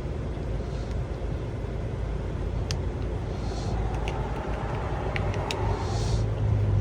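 Steady low rumble of a running vehicle, with a few small clicks from a plastic key fob being handled in the middle of the stretch.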